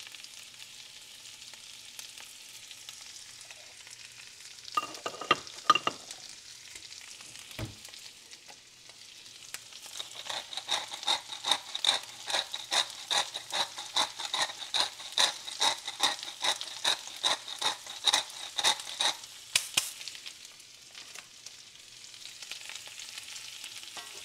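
Cubed potatoes sizzling steadily in hot bacon grease in a cast iron skillet. A few sharp knocks come about five seconds in. Midway, a twist grinder clicks over the pan in a regular run, about three clicks a second, for roughly nine seconds.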